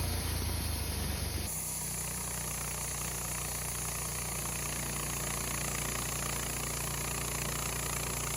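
Woodmizer LT15 sawmill running steadily, its engine driving the band saw through a ponderosa pine log. The sound changes abruptly about a second and a half in, then holds steady.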